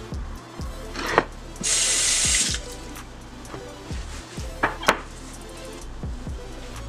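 A paper towel rubbed across a bamboo cutting board, wiping off lettuce scraps: a brief rasping hiss about two seconds in, with a few sharp knocks against the board, over background music with a steady beat.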